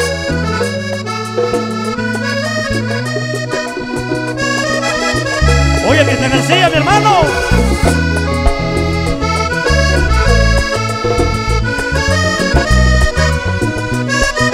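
Vallenato band playing an instrumental passage, led by a Hohner diatonic button accordion over a rhythmic bass line and percussion; the music grows louder about five seconds in.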